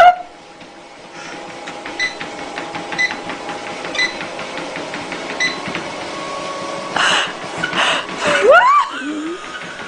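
Treadmill running with a steady motor hum and a light tick about once a second as the belt goes round. Near the end come a few louder scuffing noises and a short rising squeak.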